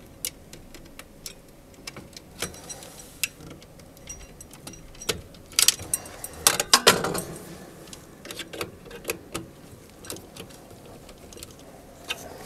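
Small hard handling noises as control wires and a small screwdriver are worked into the terminal block of a variable frequency drive: scattered light clicks and taps, with a louder flurry of rustling and clacking about six to seven seconds in.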